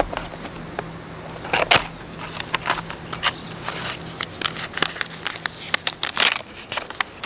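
A cardboard tea box being opened by hand and a paper tea-bag sachet pulled out and handled: a run of crinkles, scrapes and rustles, louder about a second and a half in and again around six seconds in.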